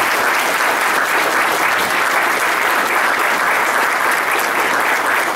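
Applause: a room of people clapping steadily.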